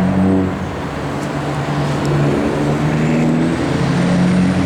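A road vehicle's engine running steadily, with a low drone and road noise.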